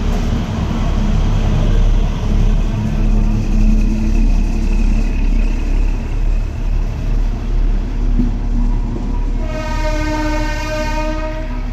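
Blue-and-white Indian Railways multiple-unit power car passing close at low speed, its diesel engine running with a deep, pulsing rumble. About nine and a half seconds in, its horn sounds once for nearly two seconds.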